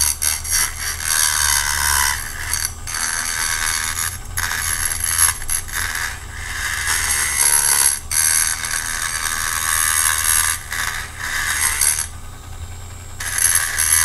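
Handheld rotary tool running at high speed, its small grinding bit shaving down the metal rivet post of a diecast car's base so the base will fit back smoothly. The grinding comes in several passes with short breaks, the longest about a second near the end.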